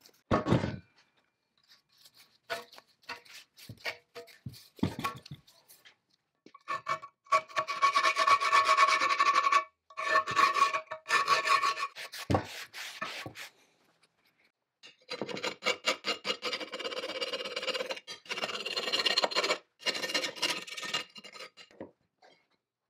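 Brush scrubbing wet cast-iron machine parts: scattered short scrapes, then two long bouts of rapid back-and-forth strokes with a squeaky ringing tone through them. A single knock near the end of the first bout.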